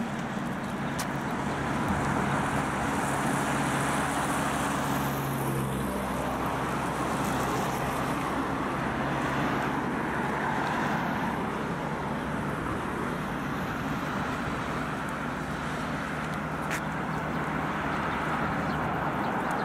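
Cars passing on a multi-lane highway: a steady rush of tyre and engine noise, with a steady low hum underneath for much of it.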